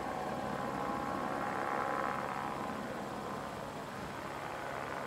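A vehicle engine idling: a steady hum, with a faint whine over it that fades out about halfway through.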